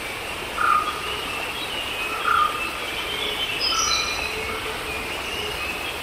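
Rainforest ambience: a steady rushing hiss with a thin insect buzz, and a short bird call repeated every couple of seconds.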